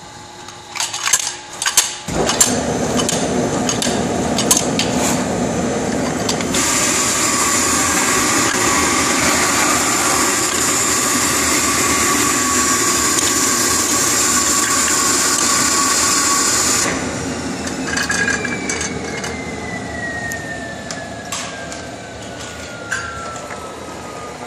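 Automatic cylindrical-cell loading machine at work: a few clicks and clatters, then a steady rushing mechanical noise from about two seconds in. A loud high hiss joins it about six seconds in and cuts off suddenly near seventeen seconds, after which a thin whine falls slowly in pitch.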